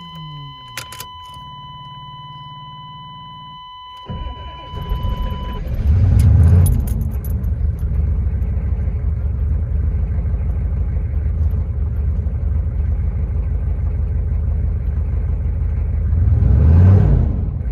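Chevrolet 6.5-litre diesel V8 in a 1994 Suburban, being started for a hard-start test. A steady warning chime sounds with the key on, the starter cranks for a couple of seconds, and the engine catches with a rev. It then settles to a steady idle, with a brief rev near the end.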